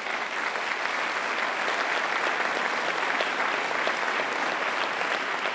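An audience applauding: steady, dense clapping from many hands, easing a little near the end.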